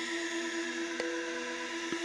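Intro music for a channel logo animation: a held chord of steady tones with a bright hiss laid over it, and a short click about a second in.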